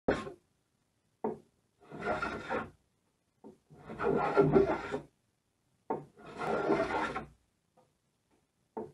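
Small hand plane shaving the edge of a plywood centerboard: three long cutting strokes of about a second each, with a short sharp scrape between strokes.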